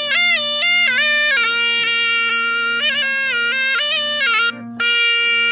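Surnai, a Rajasthani double-reed folk shawm, playing an ornamented melody that steps between notes over a steady low drone. About four and a half seconds in it breaks off briefly, then settles on one long held note.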